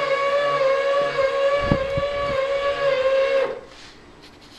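The electric drive of a homemade patient-transfer lift whines steadily while it moves the lift arm, then stops about three and a half seconds in. A couple of dull low thumps come near the middle.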